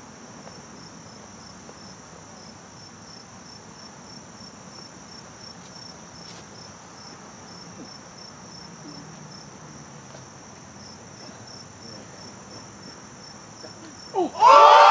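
Steady high-pitched insect chorus, a pulsing trill of about three pulses a second. Near the end a crowd bursts into loud cheering and shouting as the disc goes in for an ace.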